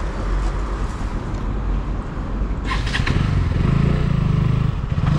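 Motorcycle engine running, getting louder from about three seconds in, with a brief rattle of clicks just before.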